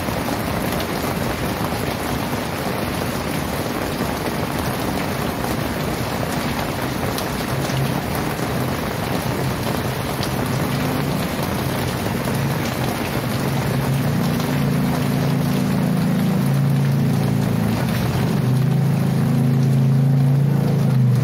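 Heavy rain pouring down in a steady dense hiss. About halfway through, a low engine-like hum joins in and grows louder toward the end.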